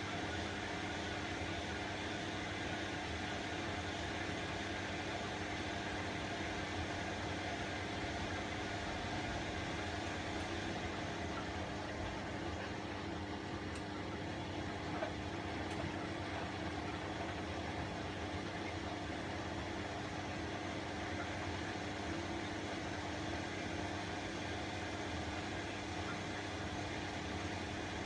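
Bosch Classixx 1200 Express washing machine (WAE24162GB) running steadily mid-cycle: a constant hum with a steady tone, level and unchanging, with one small click about fifteen seconds in.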